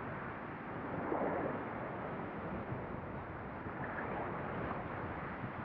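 Steady rush of ocean surf washing and breaking against a rock ledge, swelling a little about a second in.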